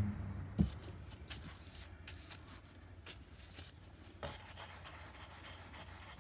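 Paintbrush working on the canvas: soft scratchy strokes and light taps, with a louder knock just under a second in and another about four seconds in.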